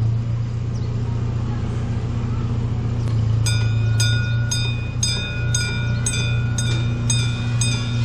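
A railroad crossing bell starts ringing about three and a half seconds in, about two strikes a second: the crossing is activating for an approaching miniature train. Under it runs a steady low engine hum.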